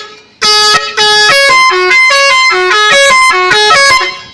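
Telolet horn, a multi-trumpet electric air horn, playing a fast tune of about fifteen short, even notes at changing pitches, starting about half a second in and stopping shortly before the end.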